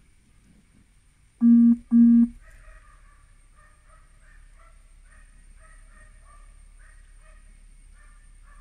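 Two short, loud horn beeps at one steady pitch, back to back about a second and a half in, over faint chirping in the background.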